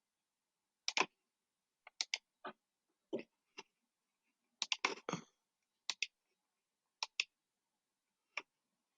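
Computer mouse and keyboard clicking while editing a design on screen: irregular sharp clicks, some in quick pairs, with a short flurry about five seconds in.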